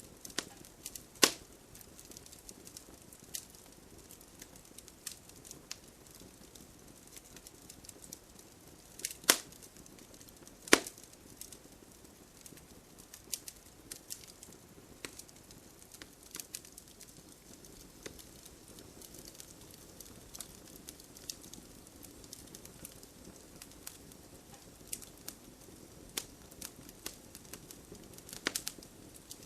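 Wood fire crackling, with a soft steady hiss and scattered irregular pops. Three louder snaps come about a second in, around nine seconds and around eleven seconds, and there is a quick flurry of pops near the end.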